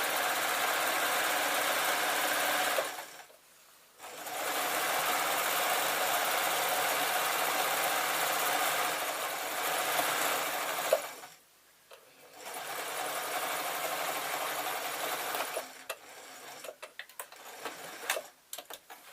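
Sewing machine stitching a straight seam through fleece, running in three spells with two short pauses between them. Near the end it stops, and a few light, sharp clicks follow.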